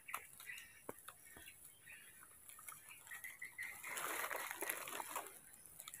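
Faint rustling and crackling of dry leaves and twigs, with a louder burst of rustling about four seconds in that lasts about a second. Short high chirps come and go over a steady high hiss.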